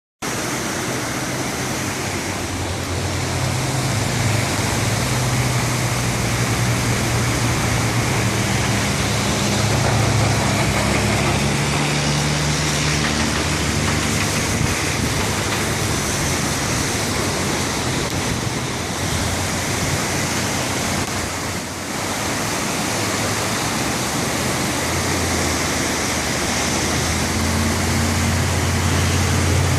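Flood-swollen Left Hand Creek rushing past in a steady, loud churn of water, with a low hum underneath that comes and goes.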